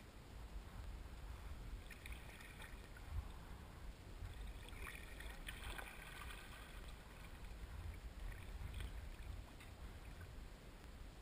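Faint water lapping and splashing around a gliding kayak, with a couple of brief splashy patches about two and five seconds in, over a low rumble of wind on the microphone.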